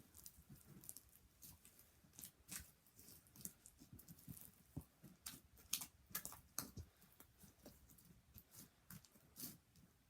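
Foam-bead slime being squeezed and worked by hand, giving faint, irregular clicks and small crackles.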